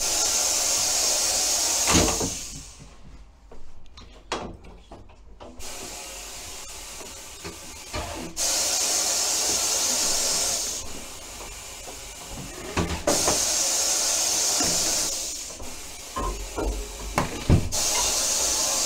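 Compressed air from a tyre-shop air line hissing in four bursts of about two seconds each, as a car tyre is aired up. Between the bursts come a few knocks and low thumps of the wheel being handled.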